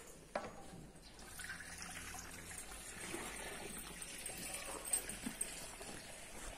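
Milk being poured from an aluminium milking bucket through a funnel into calf feeding bottles: a faint, steady trickle, with a couple of light knocks.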